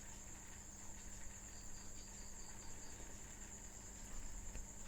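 Faint background noise: a steady high-pitched buzz over a low steady hum, with a few soft clicks near the end.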